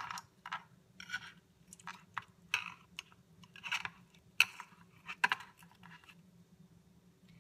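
Butter knife scraping and clicking against a metal dumpling mold tray while steamed dumplings are pried out: a series of short scrapes with two sharper clicks about four and a half and five seconds in, stopping about six seconds in. A faint steady low hum runs underneath.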